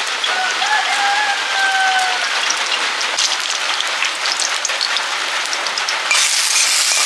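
Steady rain falling on a pond and the leaves around it, a dense even patter. About six seconds in it gives way to a brighter, louder hiss of bori (sun-dried lentil dumplings) frying in oil in a wok.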